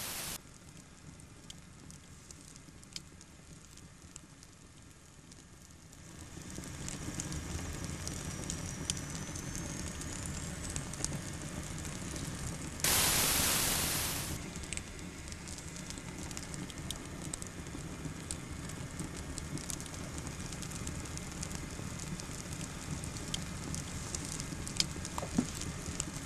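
Wood fire crackling in an open hearth, a steady low rumble with scattered small crackles, over the hiss of an old film soundtrack. A short loud burst of noise comes about 13 seconds in.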